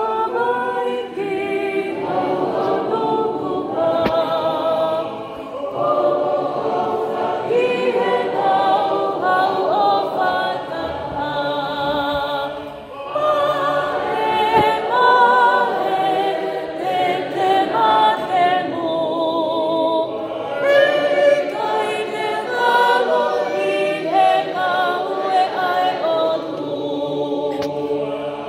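A choir singing unaccompanied, several voices together in harmony.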